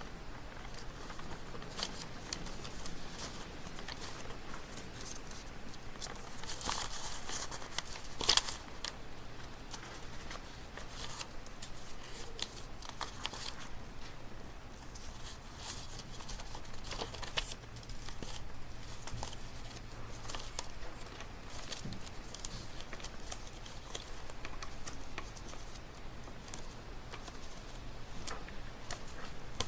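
Quiet library room ambience: scattered paper rustling and light clicks over a low steady hum, with a louder rustle and a sharp click about seven to eight seconds in.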